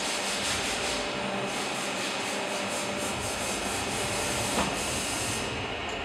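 Two-roll hydraulic thread rolling machine running, its grooved dies rolling a thread into a metal rod under coolant: a steady rubbing grind with a fast pulsing hiss. A sharp knock comes about four and a half seconds in, and the hiss falls away near the end as the rolling stops.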